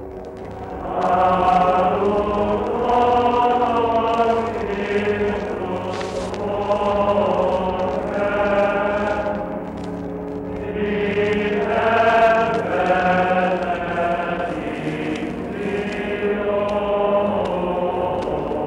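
A choir singing a slow chant in long held notes, phrase after phrase, with a short lull about midway.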